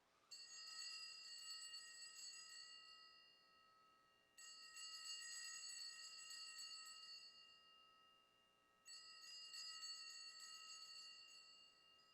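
Altar bells (a cluster of small handbells) rung faintly three times, about four and a half seconds apart, each ring shimmering and fading slowly. They signal the elevation of the host at the consecration.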